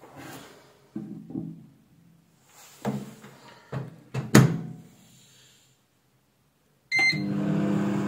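A glass is set down inside a Samsung Classic Collection 2 microwave oven, and the door is closed with a few clunks, latching with a sharp click about four seconds in. Near the end a short beep sounds and the oven starts running with a steady hum, beginning a test heating run of a glass of water.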